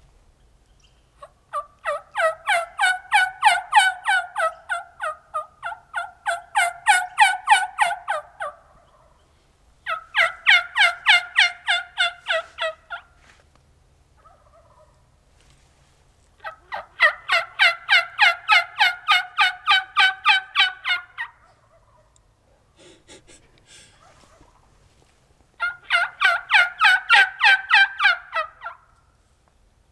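Hand-operated turkey call run in hen yelps: four long, loud runs of evenly spaced raspy yelps, about four a second, the first running about seven seconds.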